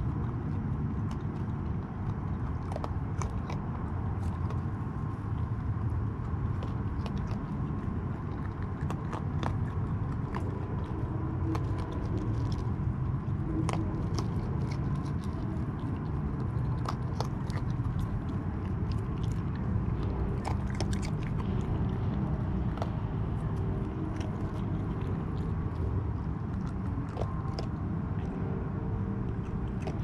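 A raccoon chewing dry kibble close by, with many short, irregular crunches throughout, over a steady low rumble.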